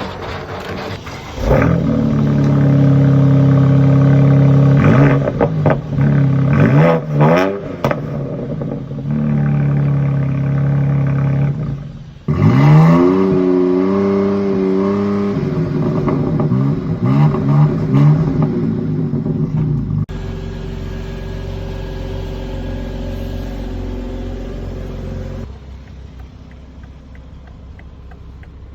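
BMW X3 M Competition's twin-turbo straight-six engine starting about a second and a half in and settling into a loud idle. It is blipped a few times with quick rises and falls in pitch, then revved and held for a few seconds before falling back, and runs more quietly toward the end.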